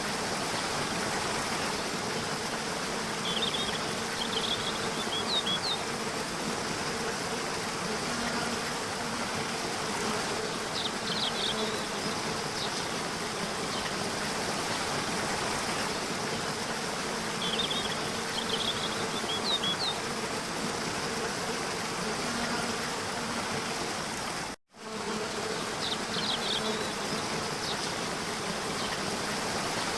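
Steady rush of a waterfall, with a continuous high buzz over it and short clusters of high chirps four times. The sound drops out for an instant about three-quarters of the way through.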